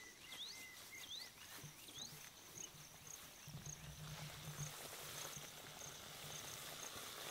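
Quiet outdoor ambience of insects chirping steadily in a high, evenly pulsing tone, with a run of short rising chirps in the first two seconds. A faint low hum joins about three and a half seconds in.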